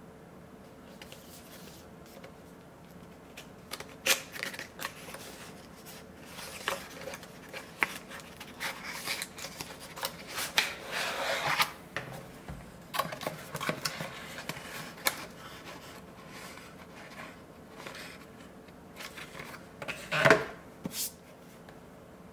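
Cardboard box being handled and opened by hand: flaps rustling and scraping, with many irregular clicks and light knocks, and a louder knock near the end as the plastic case inside is handled.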